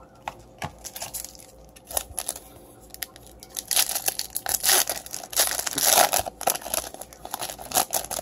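A 2018 Topps Chrome foil card pack being torn open by hand, the foil wrapper tearing and crinkling in a dense run of crackles from about four seconds in. Before that come a few light clicks and taps as a stack of cards is handled.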